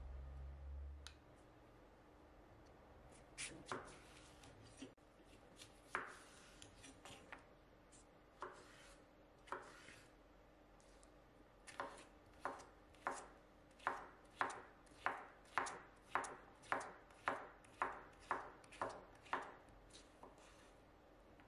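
Knife chopping on a cutting board. A few scattered cuts come first, then past the middle a steady, even run of chops at nearly two a second.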